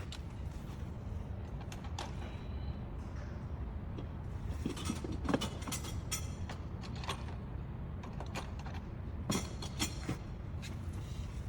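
Scattered short metallic clicks and clinks from a ratchet and tools working the front brake caliper bolts, in clusters, over a steady low background rumble.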